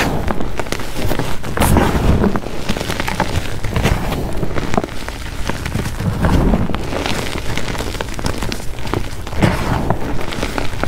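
Crumbled blocks of dyed gym chalk coated in holi powder being squeezed, scooped and crushed by hand: a dense gritty crunching and crackling of powder and small chunks, swelling louder a few times as handfuls are squeezed.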